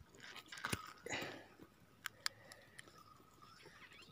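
Faint handling noise: a few sharp clicks and knocks, with a brief rustle about a second in.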